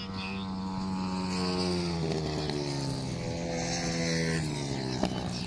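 Long-track racing motorcycles' single-cylinder engines running flat out as they pass down the straight. The engine note climbs, then glides down as they go by and into the bend about two seconds in. There is a sharp click near the end.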